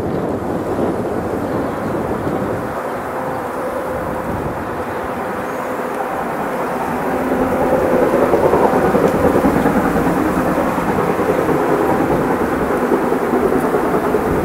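Approaching freight train, not yet in view: the droning engine of a class 132 'Ludmilla' diesel locomotive working at the head of steam locomotive 52 8079, a steady rumble with an engine hum that swells about seven seconds in.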